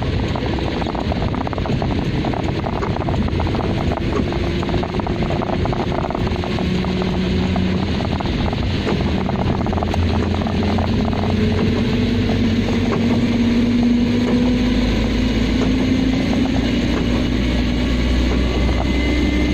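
A car driving on a wet road in heavy rain, heard from inside the cabin: a steady rush of tyres and rain. The engine note rises slowly in the second half as the car picks up speed.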